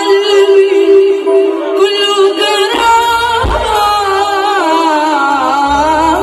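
Live Middle Eastern music: a woman singing an ornamented, gliding melody into a microphone over electronic keyboards holding a steady drone note. A deep low note swoops down a little past halfway, and a bass line comes in near the end.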